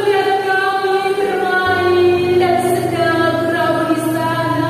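A woman singing in long, held notes, changing pitch every second or so, with a low steady accompanying tone coming in partway through.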